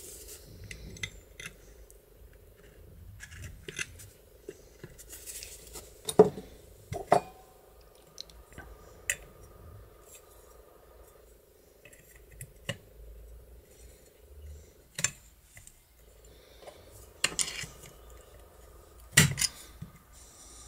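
Metal parts of a garage mortise lock being handled and fitted together: scattered sharp clicks and clinks of the steel cover plate and lock case, with a few louder knocks, over a faint steady hum.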